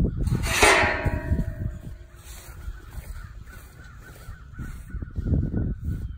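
Wind buffeting the phone's microphone in a steady low rumble, with one loud harsh sound about half a second in that fades over a second or so.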